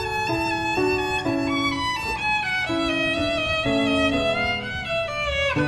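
Background music: a violin playing a melody over a lower accompaniment, notes changing every few tenths of a second.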